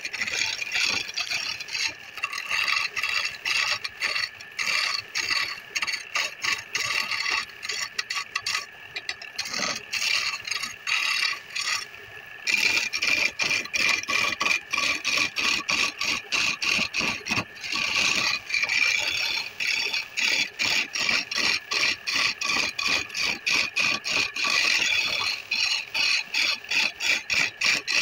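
Hand-held turning tool cutting a spinning wooden spindle on a belt-driven wood lathe: a scraping, hissing cut that pulses about three times a second, over a steady whine from the lathe's drive. The cut drops away briefly about twelve seconds in.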